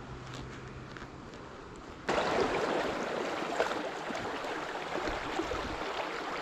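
Water of a small stream running, faint at first and suddenly much louder about two seconds in, then steady.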